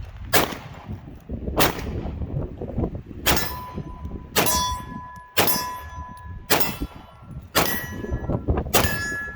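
HK VP9 9mm pistol fired in slow succession, eight shots about a second apart. From the third shot on, each is followed by a short metallic ring.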